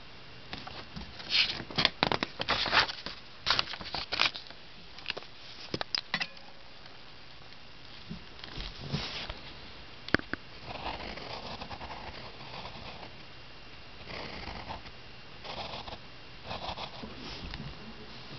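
Pencil scratching on lined notebook paper in short, irregular strokes, a quick loud cluster of strokes in the first few seconds, then softer, longer strokes later on.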